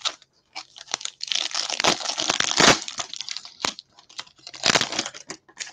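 A foil trading-card pack wrapper being torn open and crinkled, with small clicks from handling. The crinkling is densest for a couple of seconds and flares again briefly near the end.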